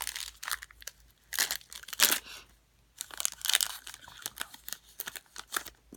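Crinkling and tearing of a foil trading-card pack wrapper as it is opened, mixed with the rustle and clicks of cards being handled, coming in irregular bunches.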